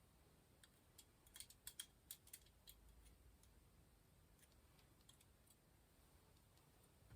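Faint, irregular light clicks and ticks, thickest in the first few seconds and then sparse: small metal parts and tools being handled during bicycle rear hub assembly.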